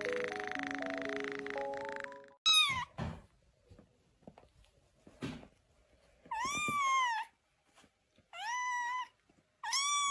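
Background music for the first couple of seconds, then a grey kitten meowing: one short meow, then three longer high meows about two seconds apart, each rising and then falling in pitch.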